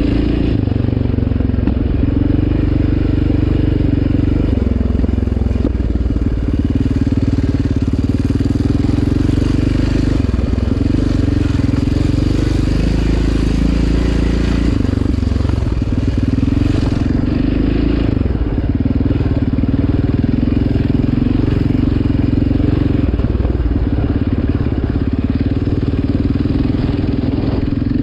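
Yamaha Raptor 700R ATV's single-cylinder four-stroke engine running under load while riding a sand trail, its pitch dipping and rising a few times as the throttle is worked.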